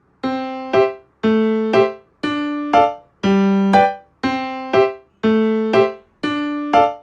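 Background music on piano: a short phrase of a chord followed by a quick second note, repeated about once a second, starting just after a moment of silence.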